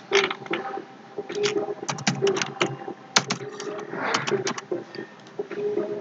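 Computer mouse clicks and keyboard keystrokes: an irregular series of sharp clicks, some in quick runs, over a faint steady hum.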